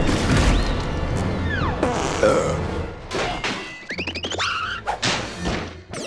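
Cartoon soundtrack: fast background music mixed with crashing and thudding sound effects. About two-thirds of the way in come quick rising whoosh-like swoops.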